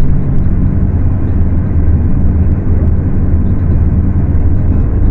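Diesel engine of a Scania K250UB city bus running steadily at high revs.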